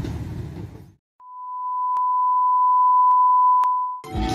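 Train rumble fades out in the first second, then a steady electronic beep tone of about 1 kHz swells in and holds for nearly three seconds, with a few faint clicks, before cutting off abruptly.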